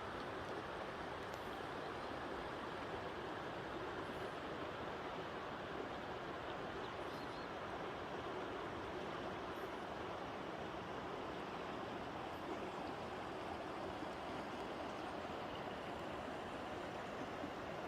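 Mountain stream rushing over rocks: a steady, even hiss of flowing water.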